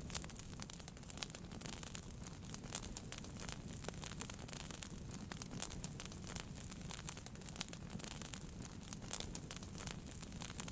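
Wood fire burning in a fireplace, crackling with many irregular sharp pops over a low steady rumble of the flames.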